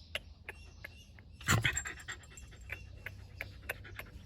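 A dog panting, with scattered light clicks and one louder thump about a second and a half in.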